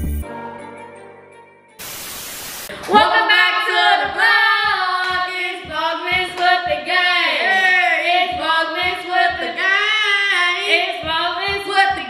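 A woman singing with sustained, gliding notes, after a fading tail of music and about a second of hiss near the start.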